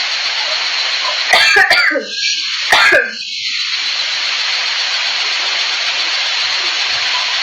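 Steady loud hiss throughout, broken about a second and a half in by two explosive outbursts of a person's breath and voice, a second apart, each ending in a short falling vocal tail.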